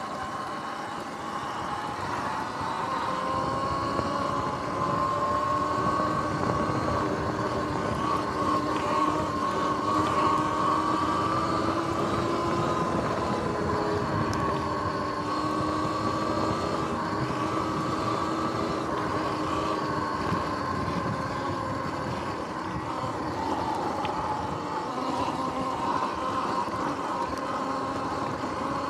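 Electric dirt bike under way: a motor whine of several steady tones that rise and fall gently with speed, over a rough, broad rumble. The sound builds over the first few seconds as the bike picks up speed, then holds.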